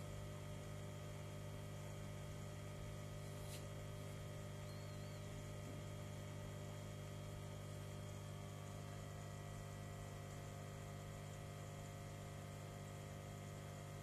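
Steady low electric hum of a saltwater aquarium's protein skimmer pump running, with a faint click about three and a half seconds in.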